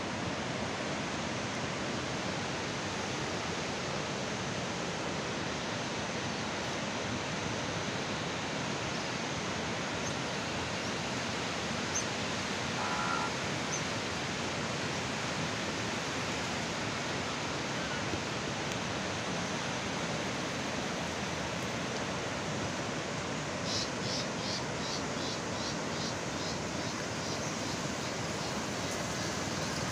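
A river in flood rushing past, a steady, even rushing noise.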